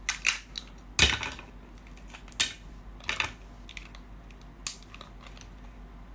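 Brown crab's shell being cracked and prised apart by hand: a series of sharp cracks and crunches over several seconds, the loudest about a second in.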